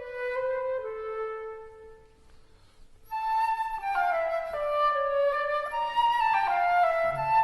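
Instrumental background music with a flute-like woodwind melody of held, stepping notes. It fades out about two seconds in and starts again, fuller, about a second later.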